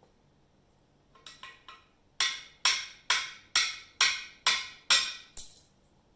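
Sharp hammer-style knocks on metal, likely from freeing an oil passage plug in a small-block Chevy engine block: three light taps, then eight hard, evenly spaced blows about two a second, each ringing briefly.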